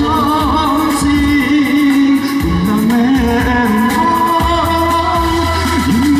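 A man singing a Vietnamese song into a microphone over an amplified backing track with a steady beat.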